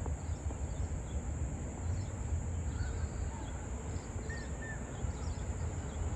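Ambience of a steady high-pitched insect drone, like crickets or cicadas, over a low rumble, with a few faint short bird chirps about four seconds in.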